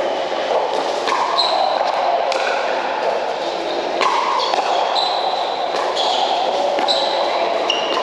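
Pickleball rally: paddles striking the plastic ball in a string of sharp hits roughly a second apart, echoing in a large indoor hall over steady background noise of the hall.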